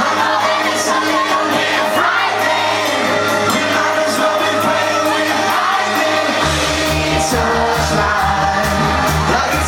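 Live pop concert recording: a boy band singing over loud amplified backing music, with crowd shouts mixed in. A pulsing bass beat comes in about six and a half seconds in.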